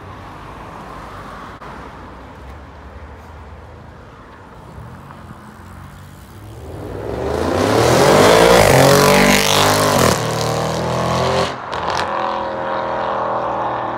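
A sports car accelerating hard past, its engine note climbing loudly. It shifts up twice near the end and keeps pulling away. A low engine rumble comes before it.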